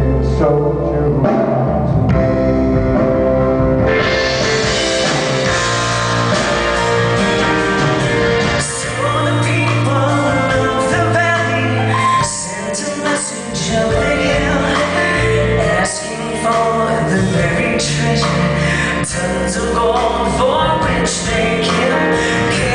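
A live band playing a song: several singers at microphones with electric guitar, keyboard and drum kit. The sound grows fuller about four seconds in, as the cymbals and the rest of the band join the keyboard.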